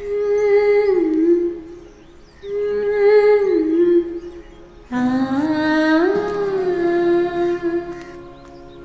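A woman humming a slow, wordless melody in three long phrases, each a held note that dips and then settles, with soft music underneath that grows fuller about five seconds in.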